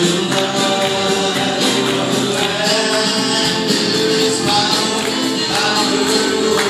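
Live church worship music: voices singing over a drum kit keeping a steady beat.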